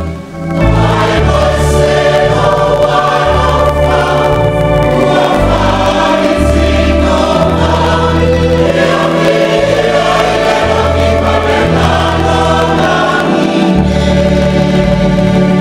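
Church congregation singing a hymn together, many voices over a keyboard bass line that changes note about every second, with a brief break just after the start.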